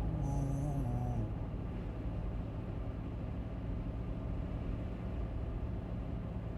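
Steady road and engine noise inside a moving car's cabin, with the last notes of a song dying away in the first second.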